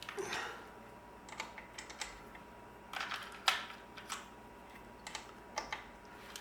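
Scattered light clicks and sharp taps of hand tools on metal, the loudest tap about halfway through.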